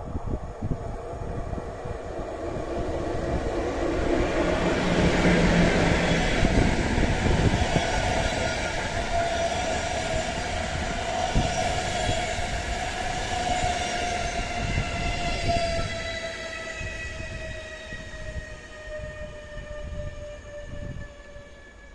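Passenger train hauled by an EP09 electric locomotive rolling along the track. The rumble swells over the first few seconds, then fades, while a whine sinks slowly in pitch through the second half.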